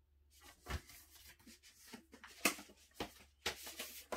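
Cardboard gatefold LP jacket and paper inner sleeves being handled: irregular rustling and scraping with several sharp taps, beginning shortly after a brief quiet moment.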